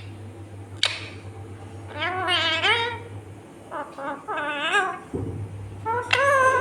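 Rose-ringed (Indian ringneck) parakeet vocalizing: three wavering, bleat-like calls about two, four and six seconds in, with a sharp click about a second in, over a steady low hum.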